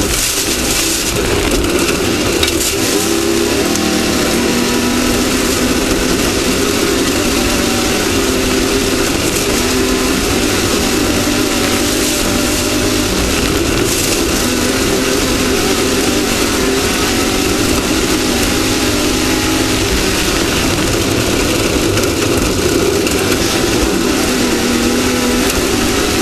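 An off-road race vehicle's engine running hard at speed, its pitch rising and falling with the throttle, over a constant rush of wind and terrain noise.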